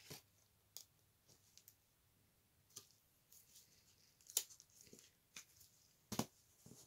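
Faint, scattered clicks and flicks of baseball trading cards being flipped through by hand, about half a dozen in all, the sharpest about four and a half seconds in.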